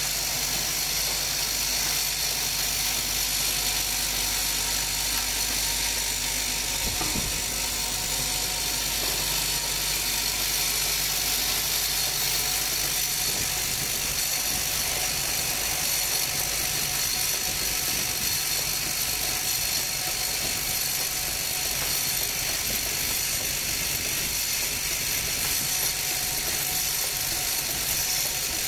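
Automatic pencil sharpener assembly machine running: a steady mechanical whir and hum with a constant high hiss and a few steady tones.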